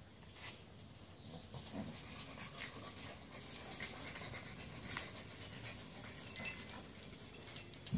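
A French bulldog and her puppies playing together, making soft dog sounds amid scattered light clicks and scuffles.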